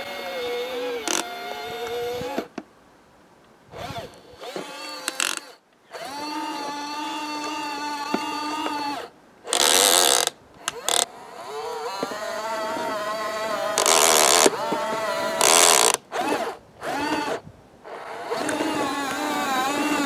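Electric motor and gearbox of a Dickie Snow King RC snow groomer whining as it drives on its tracks and pushes snow with its blade, the pitch rising and falling with the throttle. The motor stops and starts several times, and there are a few brief, louder hissing bursts.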